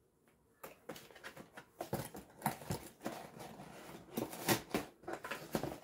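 Cardboard box being handled and pulled open by hand: scattered rustles, scrapes and light knocks of cardboard at uneven intervals, starting about half a second in.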